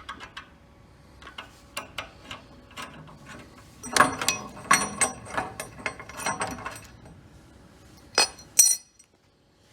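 Packers being set under a frameless glass pool-fence panel: a run of small hard clicks and clinks, busiest in the middle, then two sharp, ringing clicks near the end before the sound cuts off.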